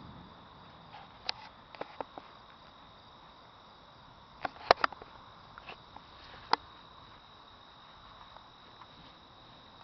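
Crickets chirping steadily in a field at night, a constant high trill, with a scatter of sharp clicks; the loudest, a quick cluster, comes about halfway through.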